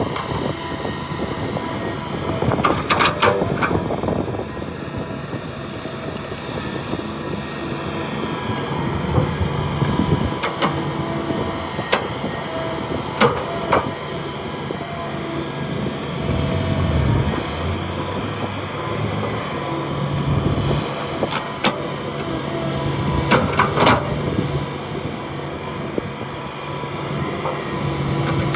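Heavy diesel machinery at an excavation site, a hydraulic excavator loading a dump truck: a steady engine drone broken by several sharp clanks of metal and rock.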